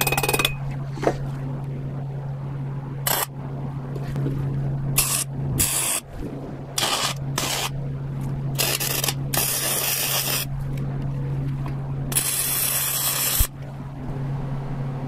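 Arc welder tacking small steel brace brackets in place: a string of short hissing, crackling bursts, two of them longer at about a second each near the end, over a steady low hum.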